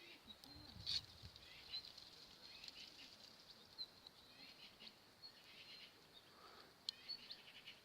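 Faint, sparse crackles and ticks from a small fire of dry leaves and rubbish burning, with a couple of sharper pops about a second in and near the end.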